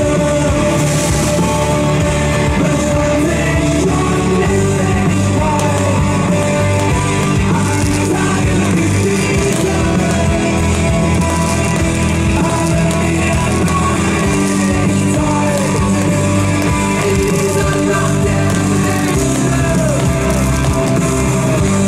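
Background music: a song with singing over a band accompaniment.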